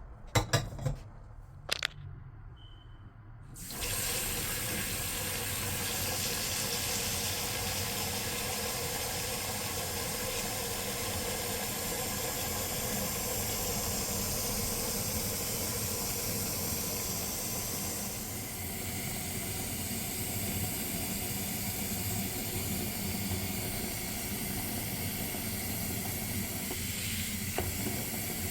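A few light clicks, then water running steadily from a tap into a sink, starting a few seconds in.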